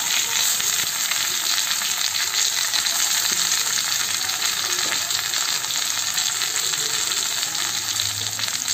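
Hot oil sizzling steadily in a kadhai around spinach paste just added on top of spluttering cumin seeds and ginger.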